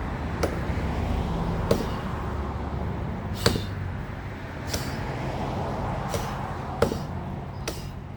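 Axe chopping into a tree limb: about seven sharp blows, unevenly spaced roughly a second apart.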